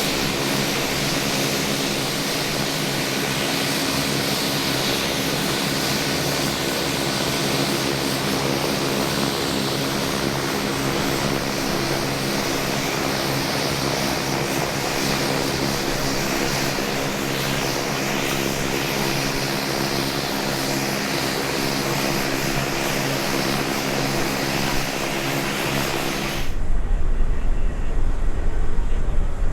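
Aircraft engines running steadily: an even multi-tone hum with a high hiss, unchanging in pitch. It cuts off abruptly near the end, giving way to a low wind rumble on the microphone.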